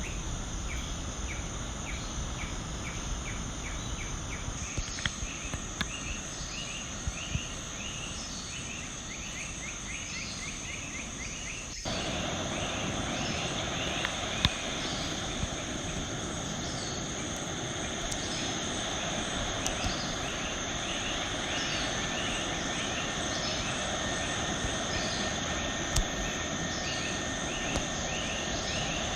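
Tropical wildlife ambience: a chorus of small animals calling in short chirps, repeated many times a second high in pitch. About twelve seconds in, a louder, fuller background hiss cuts in abruptly beneath the chirping.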